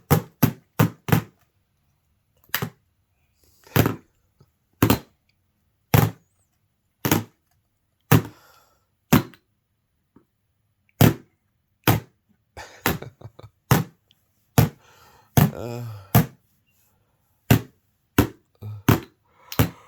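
Single sharp smacks, one at a time, roughly one a second at uneven spacing and coming closer together in the second half, with faint voice sounds between some of them.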